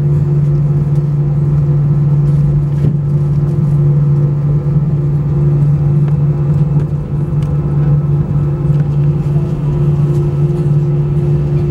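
Airbus A320-232 cabin sound while taxiing, its IAE V2500 turbofans at taxi idle: a loud steady drone with a steady low hum and a higher tone above it. A few faint knocks come through now and then.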